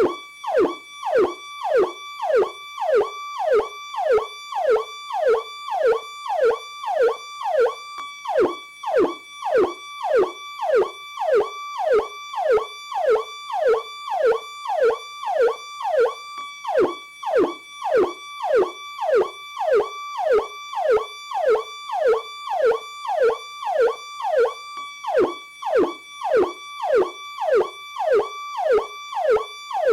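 PowerCall police siren sounding its standard tone, cycling rapidly and without a break: each cycle holds a high pitch and then swoops down, about one and a half cycles a second.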